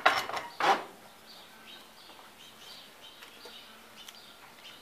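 Two sharp metallic clicks from a hand tool loosening the solenoid screws on a car starter motor in the first second. Faint, repeated high bird chirps follow.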